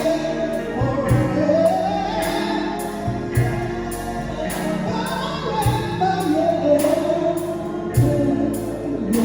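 Gospel worship song: singing over a band with a steady drum beat.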